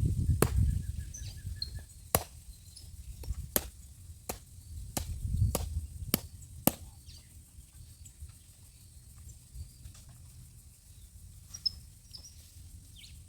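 Sharp blows breaking a coconut into pieces: about eight separate strikes at uneven intervals over the first seven seconds. After that comes quiet outdoor ambience with a few faint high chirps.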